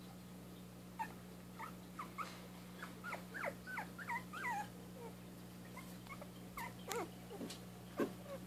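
Young dachshund puppies squeaking and whimpering: a quick run of short, high, sliding squeaks from about a second in, then a few more along with a sharp knock near the end, over a steady low hum.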